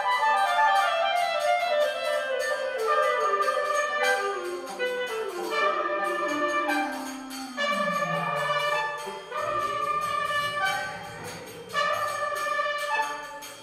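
Instrumental music played by brass and woodwinds. A long run of notes steps downward to a low note, and sustained chords follow near the end.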